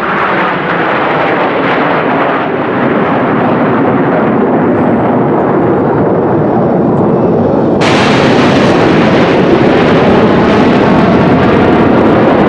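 Loud, continuous jet aircraft noise. It turns suddenly harsher and a little louder about eight seconds in.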